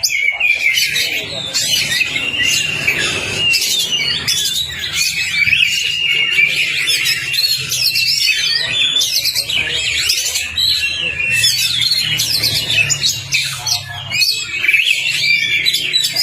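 Oriental magpie-robin (kacer) singing a fast, varied, unbroken run of high whistles and sharp chattering notes, over a faint low hum.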